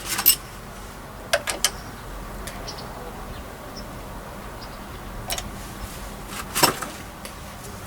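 A few sharp clicks and knocks, loudest near the end, as tools and parts are handled on a motorcycle engine during a valve timing check, over a faint steady hum.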